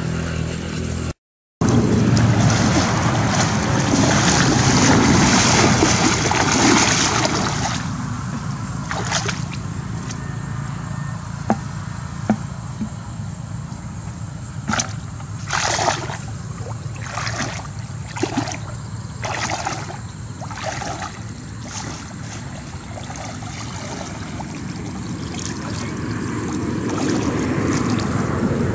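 Muddy water splashing and sloshing as a woven bamboo scoop basket is swept through shallow paddy water. After that comes a quieter stretch of dripping water with a run of sharp taps and knocks as the wet basket is tipped out over a plastic bucket, and the sloshing builds again near the end as she wades back in.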